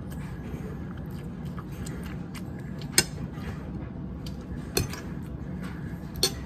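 Metal fork clinking against a ceramic plate while picking up food: three sharp clinks, roughly a second and a half apart.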